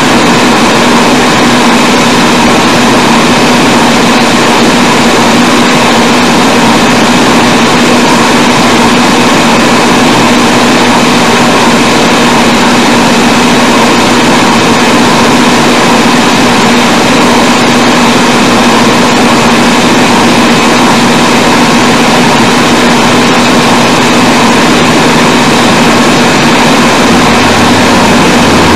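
Loud, steady noise with a constant low hum and a higher whine and no speech, from an old recording of very poor sound quality.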